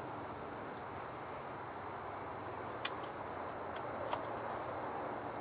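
Steady outdoor background noise with a continuous high thin tone, broken by two faint clicks about three and four seconds in.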